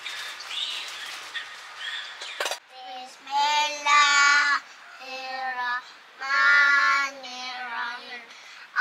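A child singing in long held, wavering notes, in phrases of a second or so, starting about two and a half seconds in after a stretch of faint high calls and clicks.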